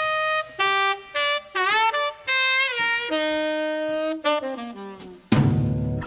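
Saxophone playing an unaccompanied solo break: a melodic line of short and held notes, some bent in pitch, with gaps between phrases. About five seconds in, the full band with drums comes back in with a loud hit.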